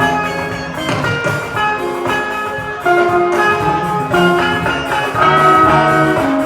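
Background music with brass and drums: held horn notes over a steady beat.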